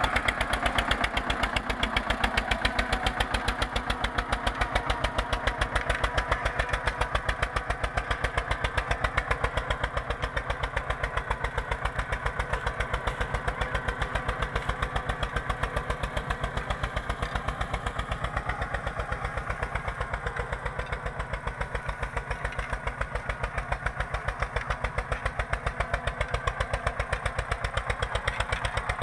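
Eicher 242 tractor's two-cylinder diesel engine running steadily under load as it pulls a 16-disc harrow. It goes a little quieter in the middle and louder again near the end.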